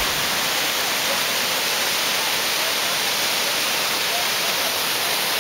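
Creek water cascading over boulders: a steady, loud rush.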